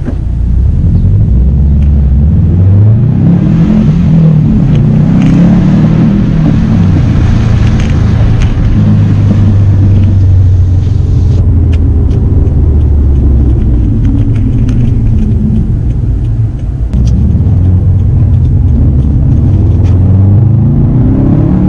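Subaru WRX STI's turbocharged flat-four engine under way, its low rumble rising in pitch several times as the car accelerates, holding steadier between the pulls.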